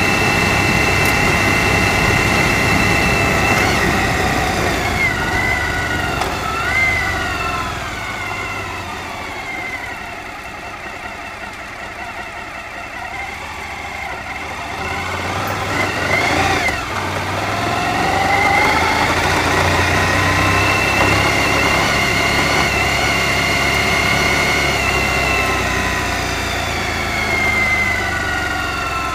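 Suzuki V-Strom DL1000's V-twin engine running under way on a gravel track. Its pitch holds steady, then drops from about four seconds in as the throttle is rolled off. There is a brief rev past the middle, the pitch climbs again as it picks up speed, and it falls away near the end.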